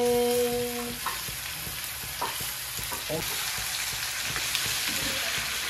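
Raw pork pieces sizzling in a hot steel kadai, stirred with a wooden spatula that knocks and scrapes against the pan now and then. A held sung note from a background song ends about a second in.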